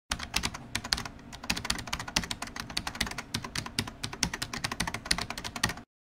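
Fast, irregular computer keyboard typing, many clicks a second, stopping abruptly just before the end.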